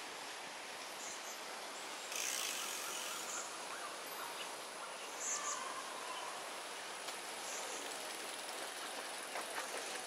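Steady outdoor background noise with a brief rustle about two seconds in, the loudest moment, and a few short high-pitched chirps scattered through.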